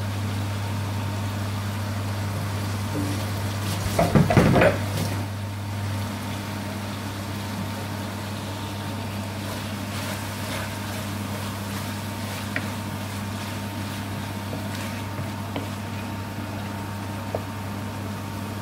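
Wooden spatula stirring chicken and onions in a metal wok on a gas hob, with light scattered taps, over a steady low hum. A brief louder burst comes about four seconds in.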